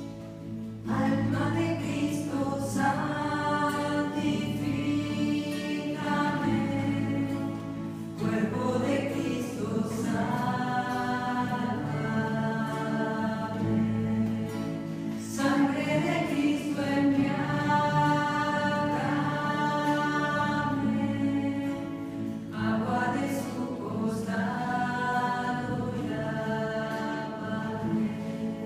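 A small group of voices singing a Catholic worship song in unison with two strummed acoustic guitars, phrase after phrase with short breaths between.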